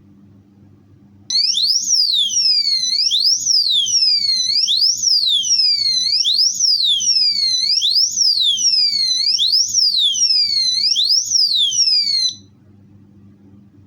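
Motorcycle disc-lock alarm (DLA001) sounding its siren. It is a high-pitched electronic wail sweeping up and down in pitch about every second and a half. It starts about a second in and cuts off suddenly about a second and a half before the end.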